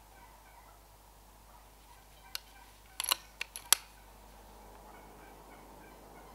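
A quick run of sharp clicks from the Brocock Concept XR air rifle's action being worked, starting about two seconds in, with the last click the loudest. Faint repeated bird calls sound behind it.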